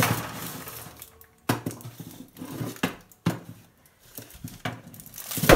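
Foil-lined baking tray being worked onto an oven's top rack: a handful of sharp metal knocks and scrapes as the tray meets the rack, with short quiet gaps between.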